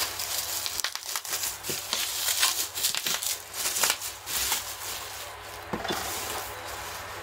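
Plastic bubble wrap crinkling and rustling as it is pulled off and crumpled from around a cardboard box. It settles to a few light handling clicks over the last couple of seconds.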